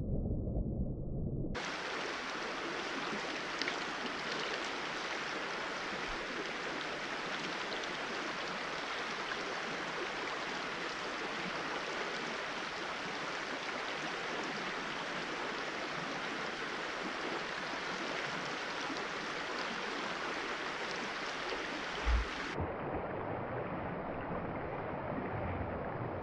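Steady rush of a small trout stream running over shallow rocky riffles. Near the end come a couple of soft low thumps.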